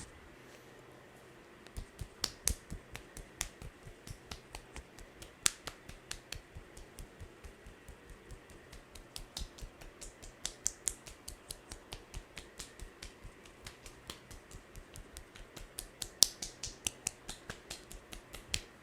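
A masseur's hands working on a head, giving a rapid, even train of sharp snapping claps about three or four a second, starting about two seconds in, with a few louder snaps among them.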